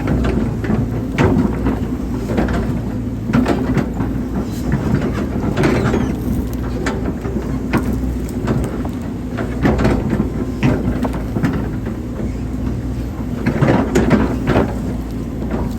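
Hydraulic excavator at work: its diesel engine runs steadily under load while the bucket and arm give irregular knocks and scrapes, as the bucket digs and moves soil.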